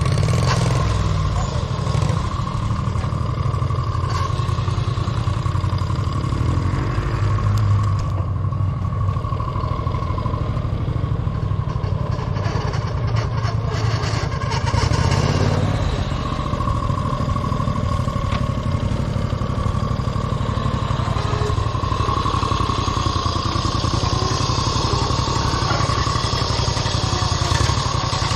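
Small tractor engine running steadily.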